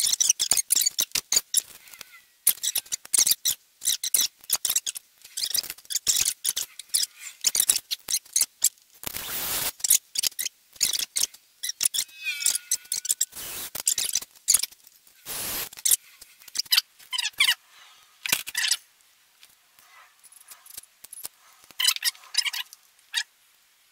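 Hand-work sounds: a rapid run of small clicks and scrapes from pliers and small plastic and metal parts being handled, with a few brief squeaks and two short louder rustles. The clicking thins out in the last few seconds.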